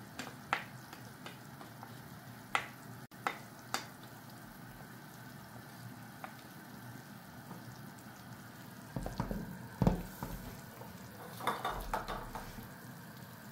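A pot of soup cooking on the stove with a faint steady hiss, while a spoon stirs it and clicks and knocks against the pot a few times, more often toward the end.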